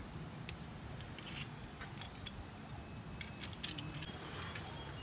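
Metal grill tongs clinking lightly against oyster shells and the wire mesh grill mat: a string of scattered small clicks and taps, more of them in the second half.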